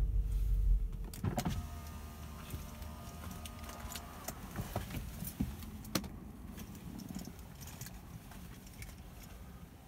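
Audi RS6's low engine rumble stops about a second in with the car at a standstill. After a click, a power window motor whirs steadily for about three seconds, followed by scattered faint clicks and ticks.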